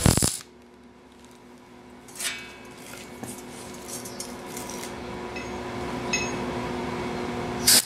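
MIG welder arc crackling as a tack weld goes onto thin 18-gauge sheet steel, cutting off a fraction of a second in. A quiet stretch follows, with a low steady hum and a brief metallic clatter about two seconds in. Near the end the arc crackles again as the second tack weld starts.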